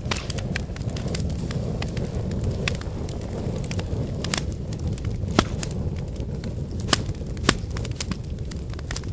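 Firewood burning: a steady low roar of flame with frequent sharp crackles and pops, a few of them louder, about halfway through and near the end.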